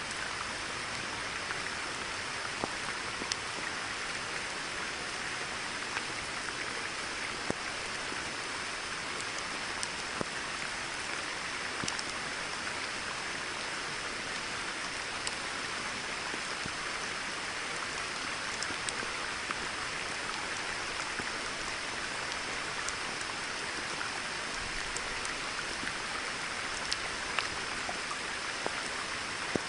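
Steady rain falling on a pond: an even hiss with scattered single drop clicks.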